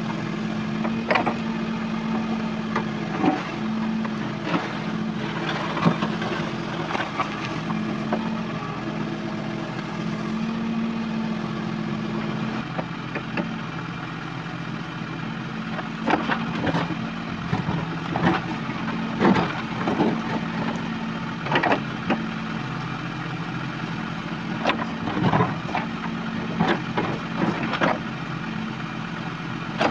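JCB 3CX backhoe loader's diesel engine running steadily while the backhoe digs, with scattered knocks and scrapes from the bucket in stony ground, more of them past the middle.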